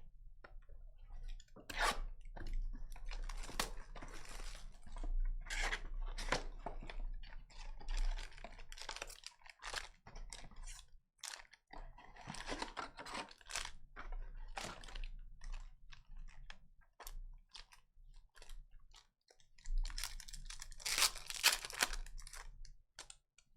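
Trading cards being handled and sorted close to the microphone: irregular rustling and clicks, loudest about twenty seconds in.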